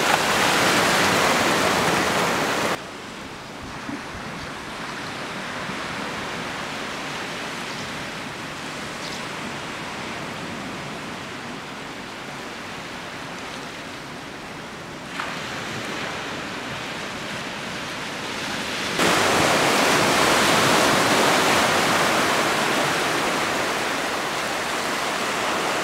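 Steady rushing noise of the sea below a cliff, with no bird calls standing out. It drops sharply in level about three seconds in, then steps back up a little past fifteen seconds and again near nineteen seconds.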